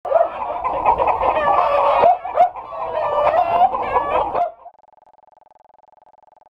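Chickens clucking and squawking close by, several calls overlapping, for about four and a half seconds. The sound then cuts off abruptly, leaving only a faint steady tone.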